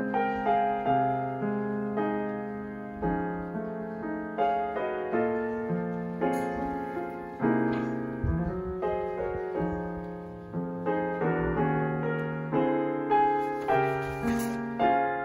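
Background piano music: unhurried notes struck one after another and left to ring and fade.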